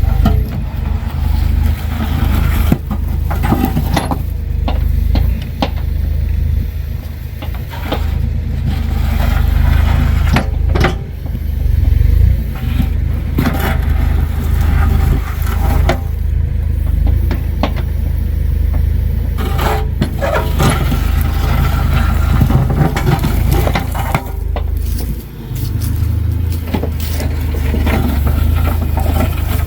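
Earth-moving machine's engine running steadily under load while its bucket scrapes and knocks against loose sandstone rocks, with repeated clunks and scrapes of stone.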